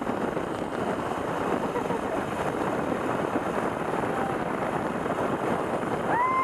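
Zip-line trolley running fast along the steel cable, with steady rushing wind on the microphone. Near the end a steady high whine sets in.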